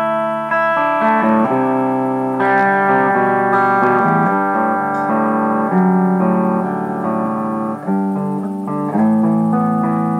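1988 ESP Mirage Custom electric guitar played with a clean tone, loosely noodled: ringing chords and single notes that change about every second, with a short dip near the end, recorded on a tablet's built-in microphone.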